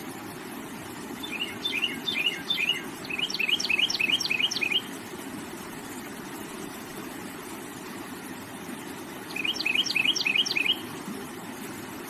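A songbird singing two bouts of rapid repeated chirps, about five short down-slurred notes a second, one bout lasting several seconds and a shorter one near the end, over the steady rush of flowing water.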